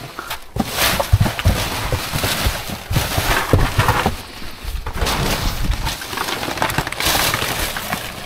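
Plastic bags, clear wrapping film and cardboard rustling and crinkling as gloved hands rummage through packaging waste, with frequent sharp crackles and knocks.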